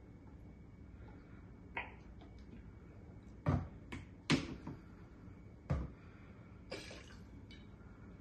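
About five short knocks and clicks of a glass syrup bottle, its cap and a small jigger being handled and set down on a countertop while simple syrup is measured into a cocktail shaker.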